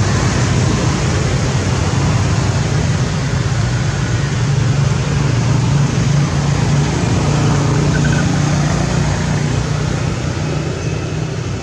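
A steady, loud mechanical drone with a hiss over it, unchanging throughout, of the kind a running motor or road traffic makes.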